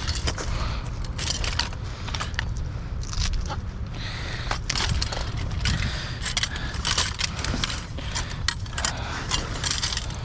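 Scrap metal pieces clattering and scraping as they are handled, with crinkling as a cover is pulled and torn off a wrecked metal frame. Irregular clicks and rattles come throughout.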